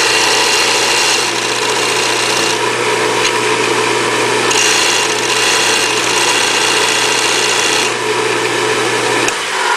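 Disc sander running with a steady hum while a high-speed steel tool blank, held in a triangular sharpening block, grinds against the disc; the grinding noise swells and eases in stretches. Near the end the motor hum stops and the sander winds down.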